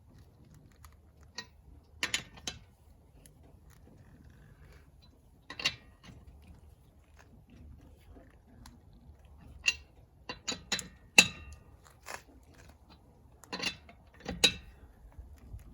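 Lug wrench being fitted onto and turned on a car wheel's lug nuts: scattered metallic clicks and clanks in small clusters, the nuts being tightened down in turn.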